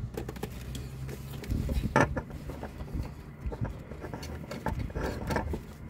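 A new spin-on oil filter being screwed on by hand onto an Iveco Daily engine. Scattered small clicks, scrapes and rubbing as the filter can turns on its thread, with a sharper knock about two seconds in.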